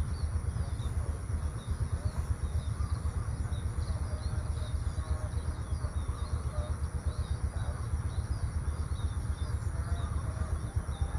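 Outdoor rural ambience: small birds chirping repeatedly over a steady high-pitched drone and a low, fluctuating rumble.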